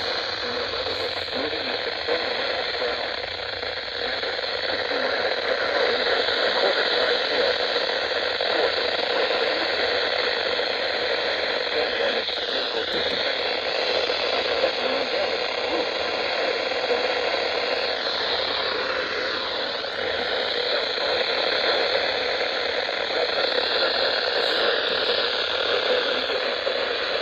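Radio static: a steady hiss of receiver noise with a faint thin whistle wavering in pitch, as the weather broadcast's signal is lost.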